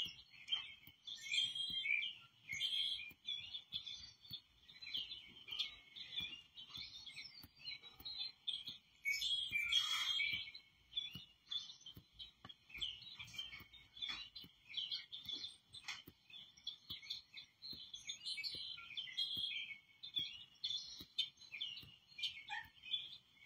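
Recorded birdsong played from a bird video through the monitor's speaker: many short chirps and tweets, busiest about ten seconds in.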